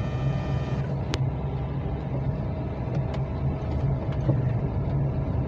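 Car driving slowly, heard from inside the cabin: a steady low engine and road rumble, with a few faint ticks.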